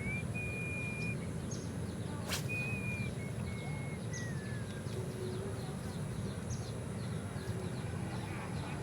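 A bird whistling long, steady high notes that end in a falling glide, over a steady low background rumble. There is one sharp click about two seconds in, and faint short chirps repeat throughout.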